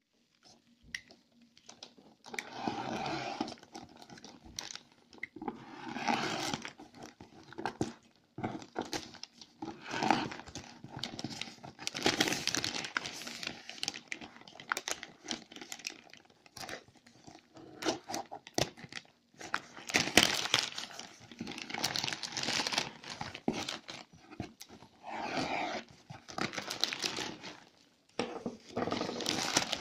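Thin plastic shipping wrap around a cardboard box crinkling and tearing as hands pull it open, in irregular bursts with short pauses between them.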